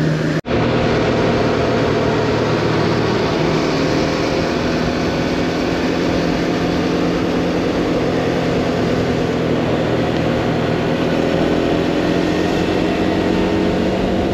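Motorcycle engine running steadily on the move, its pitch rising and falling a little as the revs change, over wind and road noise. The sound drops out briefly about half a second in.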